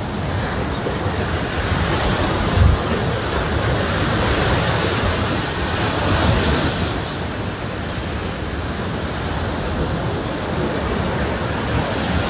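Ocean surf breaking on a sandy beach: a steady wash of waves that swells and eases, with wind on the microphone and a low buffet about two and a half seconds in.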